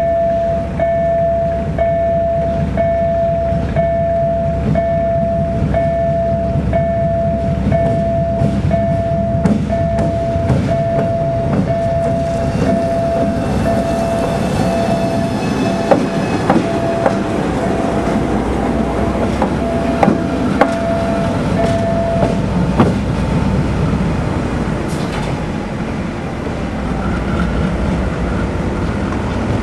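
GE C36-7i diesel locomotive running as it rolls slowly past, its engine giving a steady low rumble, with sharp wheel clicks over rail joints as it goes by. An electronic warning beep repeats about one and a half times a second and stops about three quarters of the way through.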